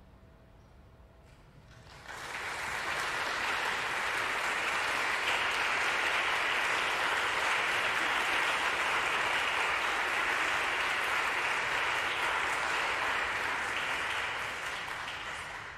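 Audience applause starts about two seconds in, holds steady, and fades out near the end.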